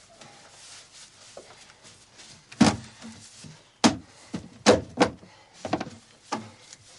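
Irregular thuds and knocks of footsteps on wooden loft boards: about six, starting about two and a half seconds in.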